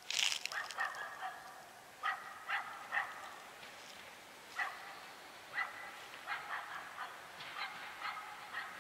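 Repeated short animal calls, more than a dozen at uneven intervals, each brief and clipped, with a louder sharp one just after the start.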